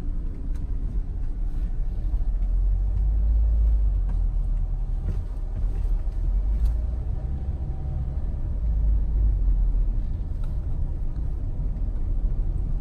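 A car driving slowly, heard from inside the cabin: a steady low rumble of engine and tyres on the road that swells a little now and then.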